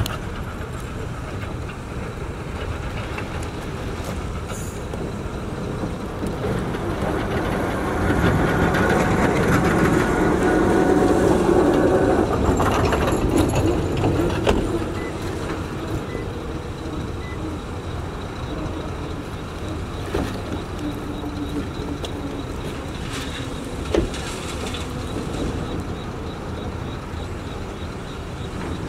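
Excavator and dump truck diesel engines running steadily, with a louder stretch of about six seconds near the middle as a bucket of crushed stone is dumped into a dump truck bed. A single sharp knock comes later on.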